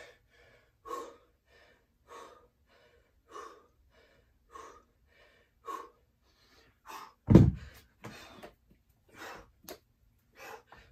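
A man breathing hard from exertion during a burpee-and-deadlift workout, with one loud breath about every second and a quarter. About seven seconds in there is a loud, deep thud as he drops down with the 25 lb hex dumbbells onto the floor, and then the hard breathing goes on.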